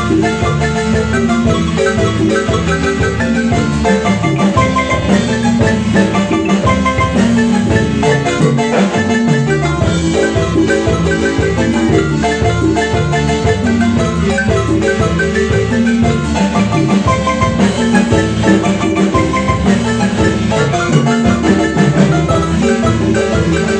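Marimba music: a marimba playing a lively, busy run of quick repeated notes over a steady bass line, without pause.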